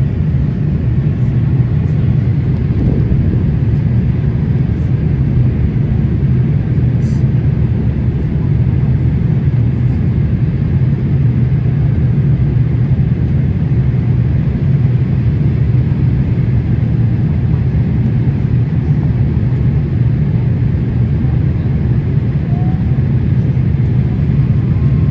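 Airliner cabin noise heard from a window seat during descent: a steady low hum of the jet engines and rushing airflow.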